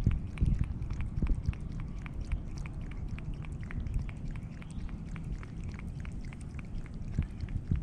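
A cat lapping water from a shallow pool: quick, small wet ticks at about four laps a second, over a steady low rumble.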